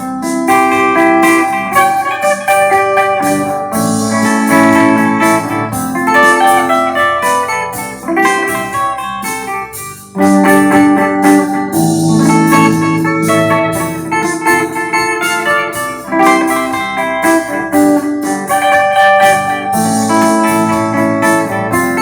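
Electric guitar played through a clean amp tone, a continuous melodic run of chords and single notes, with a brief dip in level about ten seconds in.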